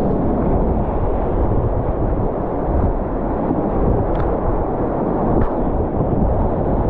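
Whitewater rapids rushing, a loud, steady, muffled rumble of moving water mixed with wind buffeting the camera microphone.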